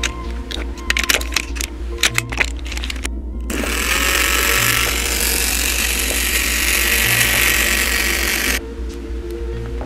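Tamiya Wild Saurus Mini 4WD's small battery-powered electric motor and gears whirring, switched on about three and a half seconds in and cutting off suddenly about five seconds later. Background music with a steady beat plays underneath.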